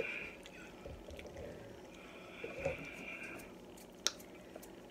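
Quiet eating sounds: spicy instant noodles being slurped and chewed, with a few light clicks of a fork, the clearest about four seconds in.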